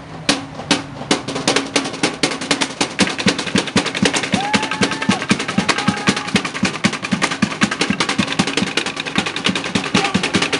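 Samoan slap dance (fa'ataupati): bare-chested men slapping their chests, arms and thighs in a fast, steady rhythm of sharp slaps, several a second, starting with a single slap.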